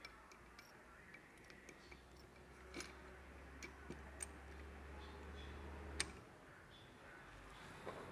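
Faint, scattered metal clicks and taps of gearbox gears and shafts being seated in an open Bajaj Discover motorcycle crankcase, the sharpest click about six seconds in. A low steady hum underneath stops soon after it.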